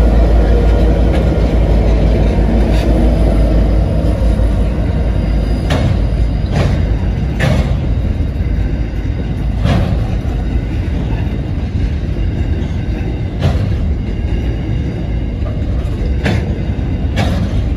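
Aurizon 2300-class diesel-electric locomotives passing close by with a low engine rumble that eases after about four seconds. A string of coal hopper wagons follows, rolling past with steady wheel-on-rail noise and a handful of sharp, irregular clicks.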